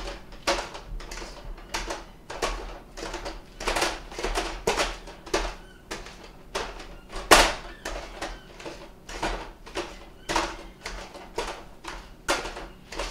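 Wire potato masher mashing ripe bananas in a stainless steel mixing bowl, knocking against the bowl's bottom in a steady series of clanks about two a second, with one louder clank a little past halfway.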